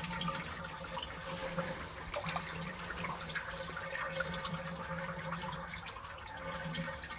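Water trickling and dripping steadily into an aquaponic fish tank, with a faint low hum underneath.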